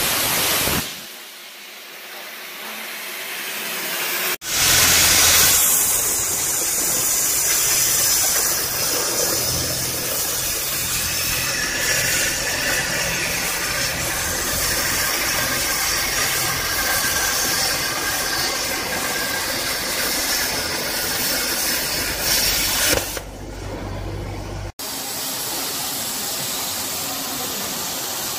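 CNC plasma cutting torch running: a loud, steady hiss of the arc and air jet over a low hum. The sound changes abruptly about four seconds in and again near the end, where it drops to a quieter steady noise.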